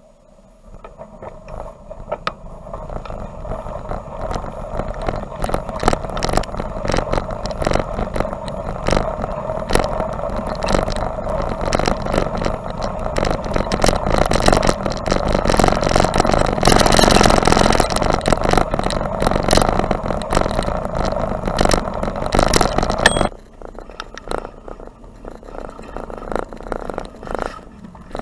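Bicycle riding over a thin layer of snow heard from a bike-mounted camera: steady rolling noise from the tyres and wind, with the camera mount rattling at every bump, building up over the first few seconds. About 23 seconds in the noise drops suddenly to a quieter, still rattling ride.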